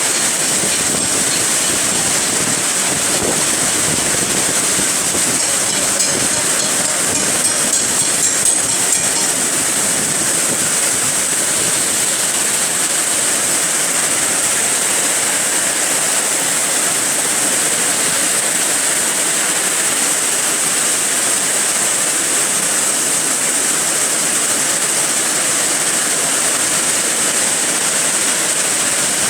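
Storm of heavy rain and wind: a steady, unbroken rushing, with a few light ticks about a third of the way in.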